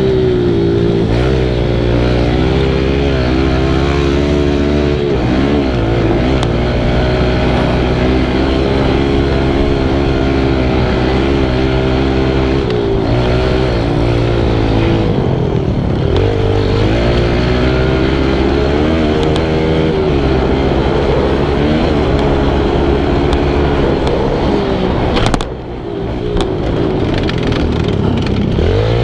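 Kawasaki KLX110 pit bike's small air-cooled single-cylinder four-stroke engine revving up and down under riding load, its pitch rising and falling with throttle and gear changes. About 25 seconds in the engine note cuts back briefly before picking up again.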